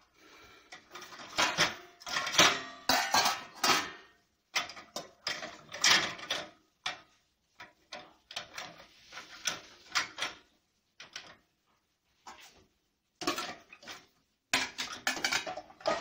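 Stainless steel plates and pots clinking and clattering against each other and the wire rack of a dishwasher as they are handled, in irregular bursts with short pauses.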